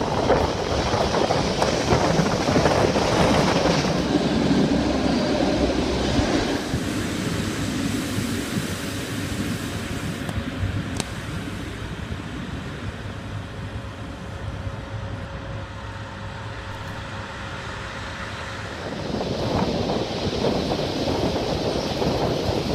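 Diesel train running along the track, heard from an open carriage window as rumbling wheel and wind noise. About six seconds in it turns much quieter as the train slows into a station, with a faint steady hum and a single click. The running noise comes back loud near the end.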